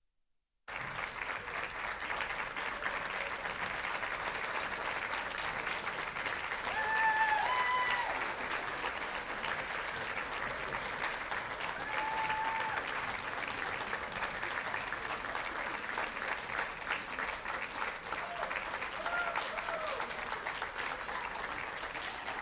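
Audience applauding steadily, starting abruptly just under a second in, with a few short whoops of cheering over the clapping.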